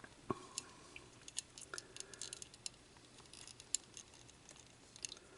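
Faint, scattered light clicks and taps of small plastic kit parts and a circuit board being handled and lined up.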